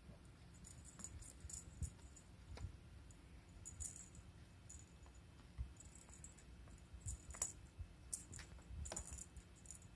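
Faint, irregular light clicks and rustles in short clusters as a long-haired cat paws at a feather cat toy on a cushion.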